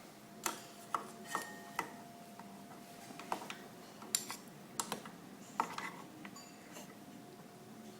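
Kitchen utensils and dishes clinking and knocking lightly, about ten sharp clicks spread over the first six seconds, over a faint steady hum.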